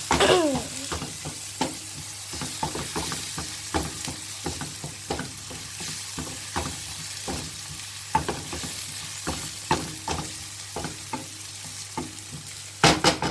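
Sliced onions frying in hot oil, a steady sizzle with frequent clicks and scrapes of a spoon stirring them in the pan, and a couple of louder knocks near the end.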